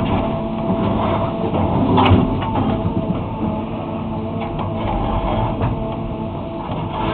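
Excavator's diesel engine running steadily under load, with clunks and scrapes of the bucket tearing up asphalt. The loudest clunk comes about two seconds in.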